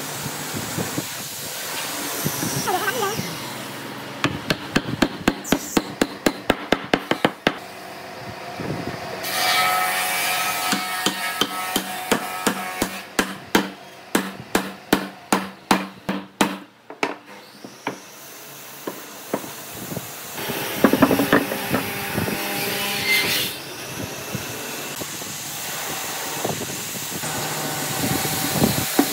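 Hammer tapping hardwood mortise-and-tenon joints together: runs of quick, even blows, about three a second, with pauses between.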